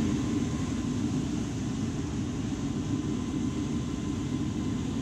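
Rooftop gas heating unit running with its newly replaced draft inducer motor spinning and the burners lit: a steady low hum and rumble.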